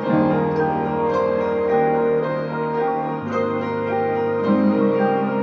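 Background music: a calm keyboard track with long held chords that change every second or so.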